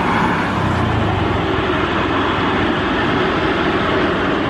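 Boeing 777-300ER's GE90-115B turbofan engines running steadily at low taxi power, a loud even rushing noise with no change in pitch.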